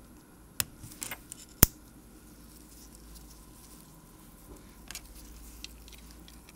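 A few sharp small clicks and taps, the loudest about one and a half seconds in and two fainter ones near the end, from small watchmaking tools and watch parts being handled on the bench.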